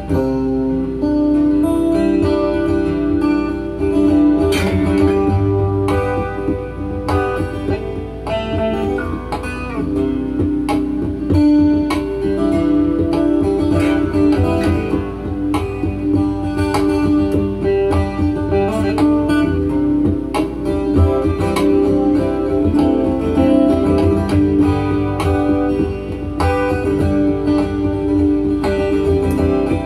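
Acoustic guitar played in an improvised live-loop jam: picked and strummed notes over layered guitar loops from a looper pedal, with a steady low hum underneath.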